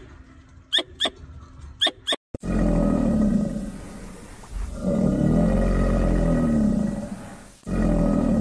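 Two pairs of short, high squeaky chirps from a squirrel in the first two seconds. Then, after a brief break, long low growling roars from a crocodilian come in three stretches of a few seconds each, and these are the loudest sound.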